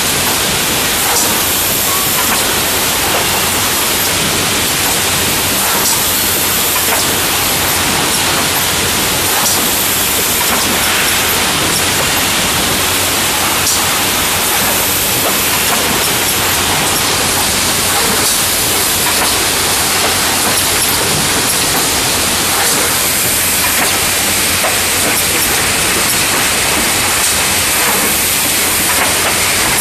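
Wrap-around case packer running at full production: a steady, loud, dense hiss of machine noise with occasional faint clicks.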